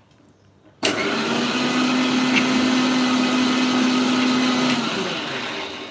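Electric mixer grinder (mixie) switched on about a second in. It runs steadily with a whine for about four seconds, coarsely crushing mustard seeds and green chillies with ground coconut in its steel jar, then is switched off and winds down near the end.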